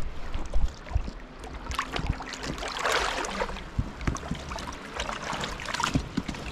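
Shallow seawater splashing and sloshing as someone wades across a reef flat, with a stronger splash about three seconds in.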